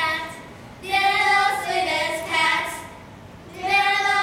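Several children singing together in two short phrases, with a brief pause between them.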